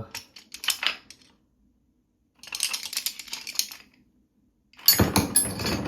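Metal hand tools, a set of nut drivers among them, clinking and rattling as they are handled in a tool bag: a few light clicks, a jingling rattle about midway, and a louder clatter near the end.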